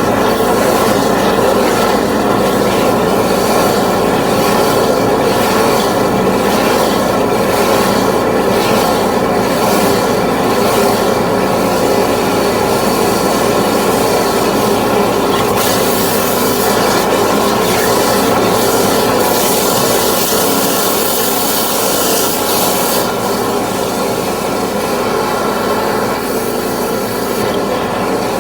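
High-pressure drain jetting machine running steadily, its pump and engine giving a dense mechanical hum. A sharper water hiss comes in briefly past the middle.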